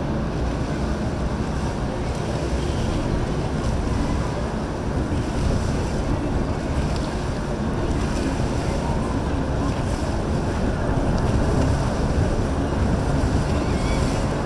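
Wind buffeting the microphone over the steady wash of waves and the rumble of passing boat engines.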